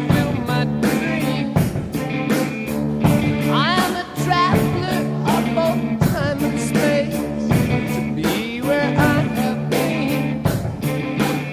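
A rock song playing: a singing voice over a steady drum beat and sustained guitar chords.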